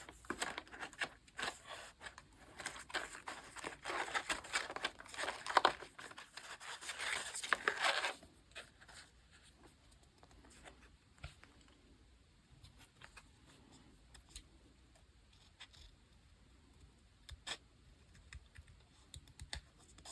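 Paper and sticker materials handled close to the microphone: crinkling and tearing for about eight seconds, then much quieter with a few scattered light taps.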